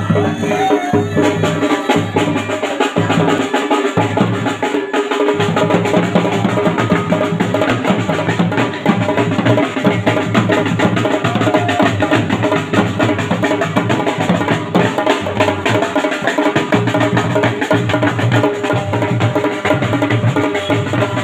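Dhol drums beaten fast and loud, with dense rapid strokes over a sustained pitched band accompaniment, played for dancing.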